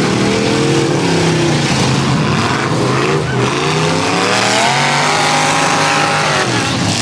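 Several V8 demolition-derby cars' engines revving hard and unevenly as the cars ram and shove each other, the pitch rising and falling. One engine climbs about halfway through, holds high, then drops away near the end.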